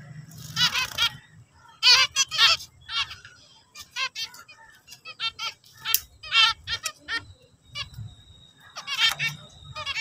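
Zebra finches calling and singing: about half a dozen short bursts of quick, repeated pitched notes with pauses between them.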